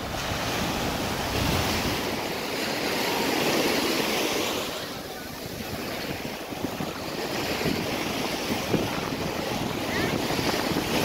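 Sea surf washing up on the beach, the noise swelling and easing as the waves come in, with wind buffeting the microphone.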